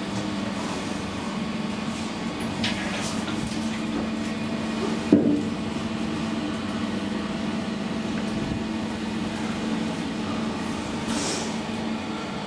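2012 SMW traction elevator car travelling between floors with a steady hum. A sharp click comes about five seconds in, and near the end a short swish as the car doors slide open.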